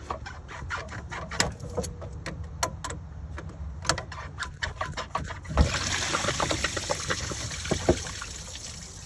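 Scattered metal clicks from hose clamp pliers working a spring clamp on the bottom radiator hose. About five and a half seconds in, engine coolant starts gushing out of the loosened hose into a drain pan as a steady splashing hiss.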